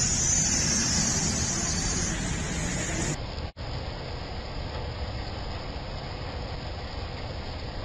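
Steady rush of heavy rain, with a vehicle's low rumble under it in the first few seconds. The sound changes abruptly about three seconds in, and there is a momentary dropout just after, before the rain noise carries on.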